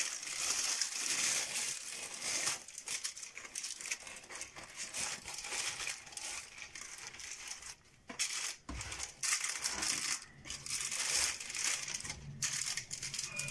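Baking paper crinkling and rustling in irregular bursts as it is pulled and pressed around a potato roll, with a brief pause a little past halfway.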